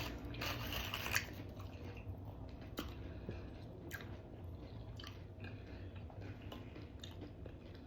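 Quiet chewing and biting mouth sounds of someone eating hot queso dip, with scattered soft clicks.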